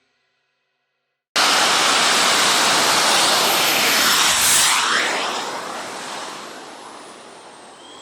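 Small jet turbine engine on a mini bike running hard, a loud even rushing noise. It cuts in suddenly after about a second of silence, is loudest around the middle as it passes close, then fades away.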